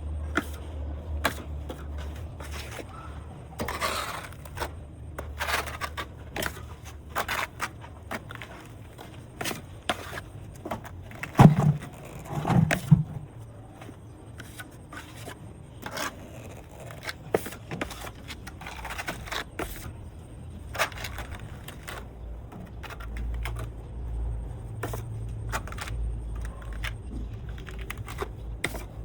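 Hand tools scraping and clinking at concrete work: many irregular sharp knocks and scrapes, with two heavier thuds about twelve seconds in. A low rumble sits underneath near the start and again near the end.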